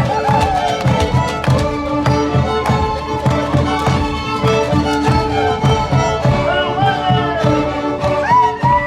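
Violins playing a misachico, the folk procession music of northern Argentina, with a gliding melody over a steady beat of about two to three strokes a second.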